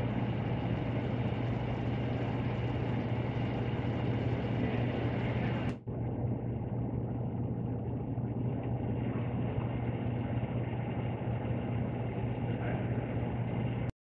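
Steady low electrical hum over a constant rushing noise from an electric tube furnace heating toward 1200 °C. The sound drops out for a moment just before six seconds in and then carries on unchanged.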